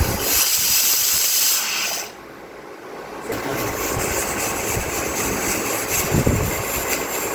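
Pressure cooker whistle venting steam in a loud hiss. The steam cuts out about two seconds in and starts again about a second later: the cooker has come up to pressure with the pumpkin and milk inside.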